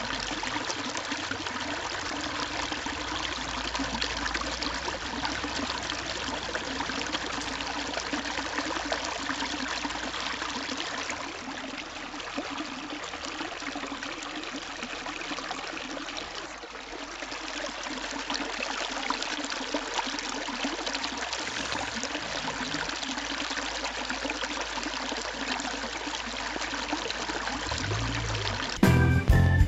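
Small fountain jet splashing steadily back into a water-filled stone basin, a continuous splashing and trickling. Music cuts in loudly about a second before the end.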